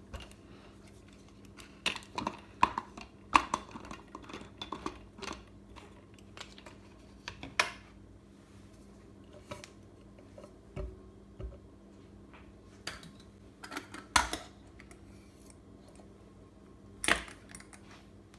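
Knocks, clicks and clinks of metal and glass coffee gear being handled and set down on a hard tabletop: a hand-crank coffee grinder taken apart, a glass jar of ground coffee and a glass French press. A busy run of clicks comes early, then single sharper knocks, the loudest near the end.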